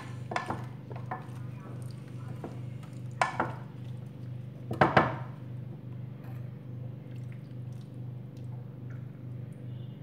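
Wooden spoon stirring cut vegetables in a glass dish, with a few knocks and scrapes against the dish, the loudest about five seconds in. A steady low hum runs underneath.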